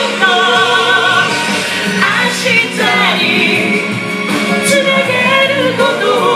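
A large group singing a song together in unison, amplified through handheld microphones.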